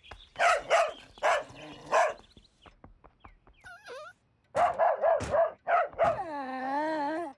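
Cartoon dog barking: about four barks in the first two seconds and a few more about five seconds in, then one long wavering whine near the end.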